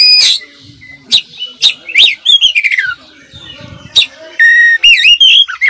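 Oriental magpie-robin singing a loud, varied song full of mimicked phrases. Sharp short notes come first, then a long falling sweep about two seconds in, and a held whistle breaking into rapid warbling near the end.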